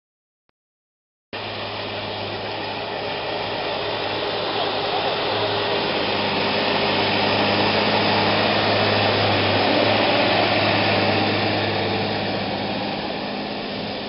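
Fendt 926 tractor's diesel engine working under load pulling a plough, a steady drone that starts abruptly about a second in, grows louder as the tractor comes close, then eases off near the end.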